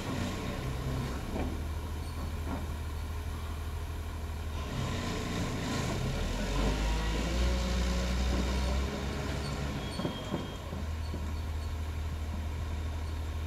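JCB JS200 excavator's diesel engine running, growing louder under load for a few seconds in the middle, with a few short metallic clanks.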